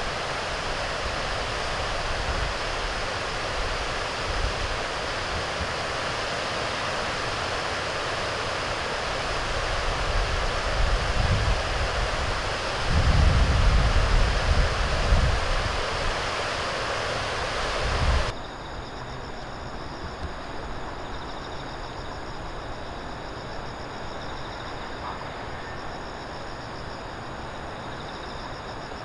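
Steady rushing outdoor noise, with low wind rumble on the microphone swelling in the middle. About two-thirds through it cuts suddenly to a quieter background with faint steady high tones.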